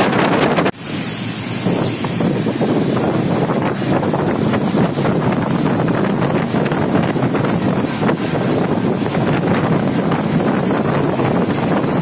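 Wind rushing over the microphone while riding in a moving vehicle, a loud steady noise with the vehicle's running sound underneath. It dips briefly about a second in, then carries on.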